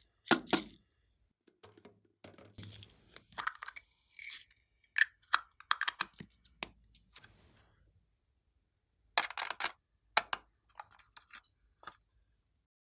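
Clear slime being worked by hand, giving off irregular short sticky pops and crackles, with a pause of about two seconds past the middle.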